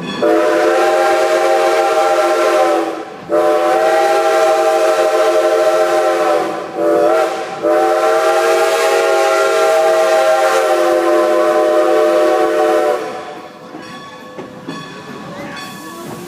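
Steam locomotive whistle blowing the grade-crossing signal: two long blasts, a short one, then a final long blast lasting about five seconds. After the whistle stops, the train is heard rolling along the rails.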